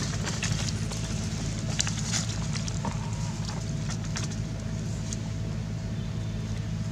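A motor running steadily nearby, a low even hum with a faint thin whine above it, with scattered sharp clicks and rustles on top.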